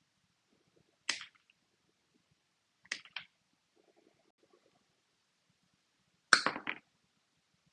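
Flush cut pliers snipping through material with sharp snaps: one about a second in, a quick double snap near three seconds, and the loudest, a short cluster of snaps, about six and a half seconds in.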